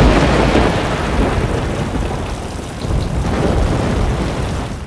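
Heavy rain with a deep thunder rumble, loudest at the start and dying away toward the end.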